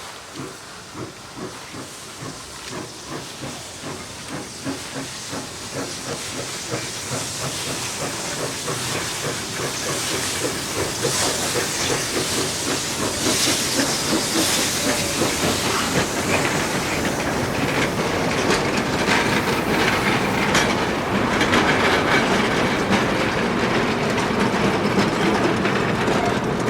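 Narrow-gauge forest-railway steam locomotive working, its regular exhaust beats growing steadily louder as it approaches, with loud steam hissing from about the middle on.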